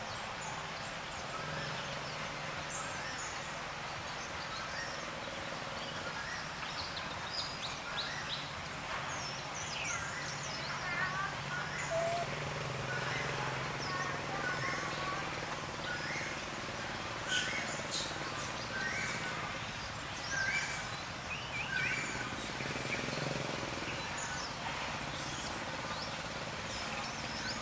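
Outdoor ambience: a steady background hiss with many short bird chirps and tweets scattered throughout, thickest from about a third of the way in.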